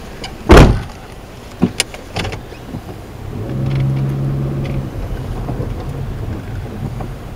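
Honda car driving over a rutted, snow-covered track, heard from inside the cabin: a heavy thump about half a second in as the car jolts over the ruts, a few sharp knocks shortly after, then the engine note rising and holding steady as it pulls.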